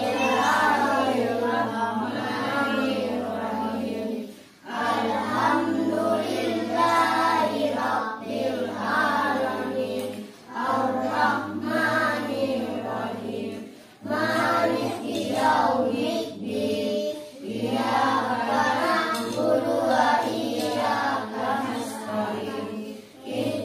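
A group of children reciting Quranic verses aloud in unison, in a sing-song chant. The recitation goes in phrases of a few seconds, each broken by a short pause.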